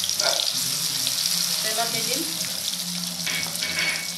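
Wet poppy-seed, green chilli and ginger paste sizzling steadily in hot oil as it is scraped into a frying pan with a wooden spatula.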